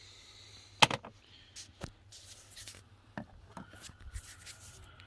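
Handling noises from a cabin air filter cassette just pulled from its housing behind the glovebox: plastic clicks and rustling scrapes, with one sharp click a little under a second in.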